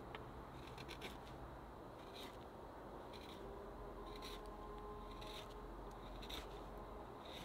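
Hand tool scraping and shaving dry pine in slow, even strokes, about one a second, as a wooden bird is carved or smoothed.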